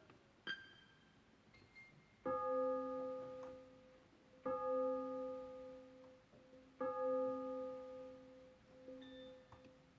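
Yamaha electronic keyboard sounding the same sustained note three times, about two seconds apart, each note ringing on and fading away, with a faint short blip about half a second in.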